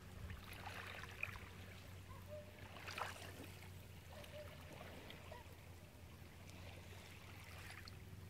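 Faint beach ambience: a low steady hum under soft water noise, with faint taps about a second in and again about three seconds in.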